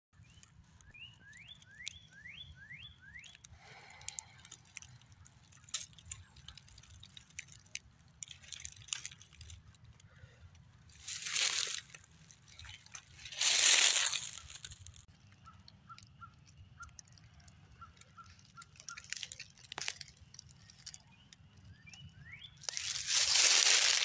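Small birds chirping: a quick run of about five sweeping chirps near the start and short repeated high notes later. Dry fallen leaves crackle throughout, with three loud crunching rustles of about a second each, the loudest sounds.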